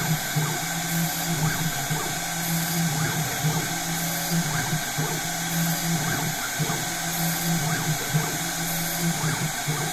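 Spindle motor of a small CNC machine running steadily as it machines a printed circuit board, with small changes in the sound roughly every second.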